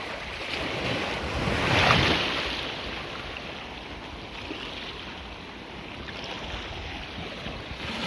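Shallow sea surf washing and breaking close by: a surge of breaking water peaks about two seconds in, then eases to a steady wash.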